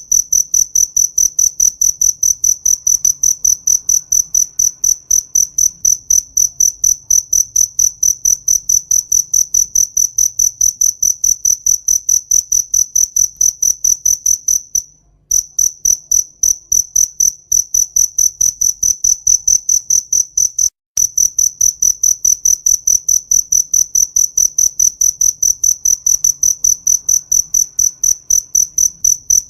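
A cricket chirping in a fast, even rhythm of high-pitched pulses, pausing briefly about halfway through and again a few seconds later.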